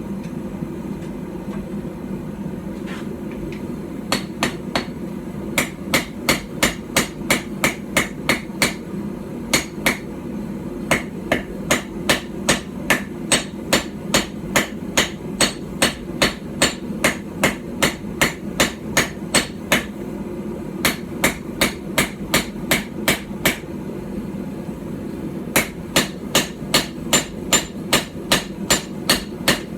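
Small hand-forged hammer striking a knife blank on a small stump anvil, in runs of quick blows about three a second with short pauses between runs.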